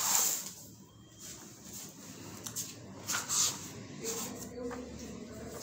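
Paper rustling as the pages of a paperback textbook are flipped over by hand, in several short rustles with the loudest about three seconds in.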